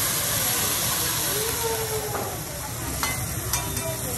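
Wagyu fillet sizzling and flaming on a hot teppanyaki steel griddle during a flambé: a steady hiss that eases slightly after the first second or two, with a few light clicks about three seconds in.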